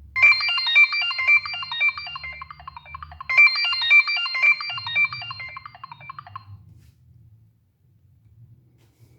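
Nokia 6585i's speaker playing a polyphonic ringtone: a quick run of short, bright synth notes. The phrase of about three seconds is played twice, then fades out about two-thirds of the way through, over a faint low hum.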